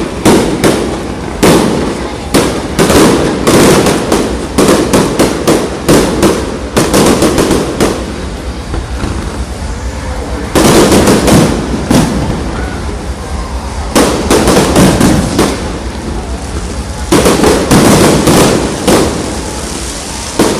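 Aerial fireworks bursting in rapid volleys of sharp bangs and crackles, easing off for a couple of seconds about halfway through, then firing densely again.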